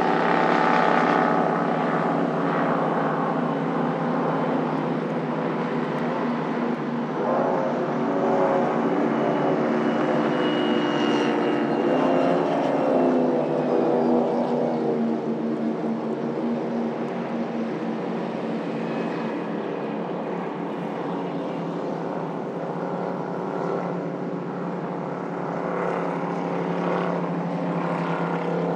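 Speedboat engines running, a loud, dense, many-toned drone whose pitch wavers and slides in the middle.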